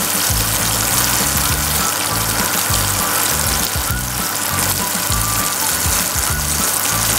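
Chicken pieces deep-frying in hot oil: a steady, dense sizzle and crackle, with background music over it.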